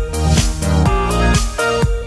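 Background music: an upbeat electronic track with plucked guitar notes over a steady beat.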